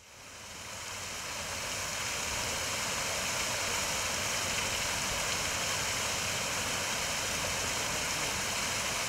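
Water from a small rock waterfall spilling in thin streams over a stone ledge and splashing below, a steady rushing that fades in over the first second.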